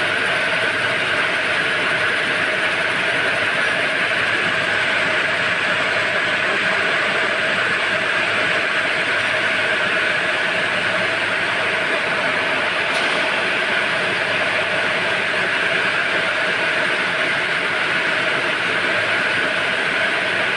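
Needle loom machines weaving webbing belts, running steadily at speed: a continuous, even mechanical noise that does not change in pace or level.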